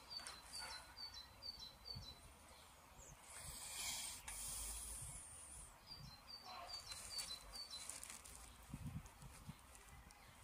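A small bird singing runs of short, evenly spaced high chirps, about three a second, once at the start and again about six seconds in. Between the runs a louder rush of hiss swells and fades.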